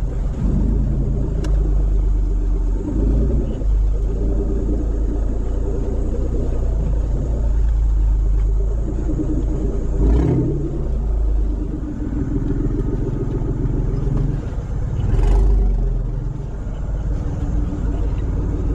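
4WD engine running at low revs as the vehicle crawls along a muddy canyon track, heard from inside the cab. Two heavy thumps sound about ten and fifteen seconds in.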